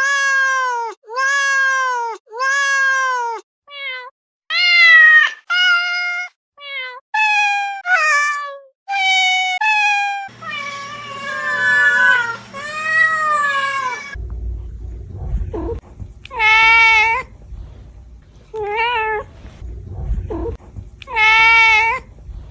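A string of domestic cat meows spliced together from several recordings: three matching meows of about a second each, then a run of shorter, varied meows, then longer drawn-out meows over a low background hum in the last part.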